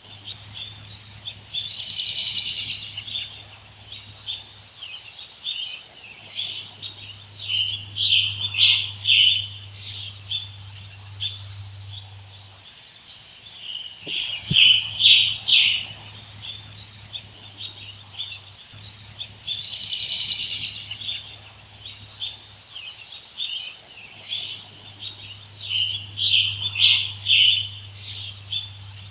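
Woodland birds singing: clear held whistled notes alternating with quick chirping trills, in phrases every second or two.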